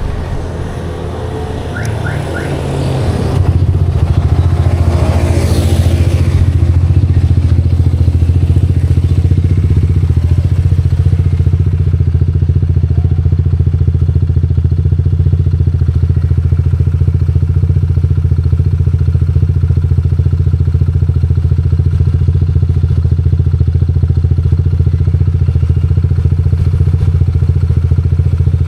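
Honda PCX160 scooter's single-cylinder engine idling through an aftermarket TSMP 2.5 blue-tip exhaust. It gets louder about three seconds in and then runs steady.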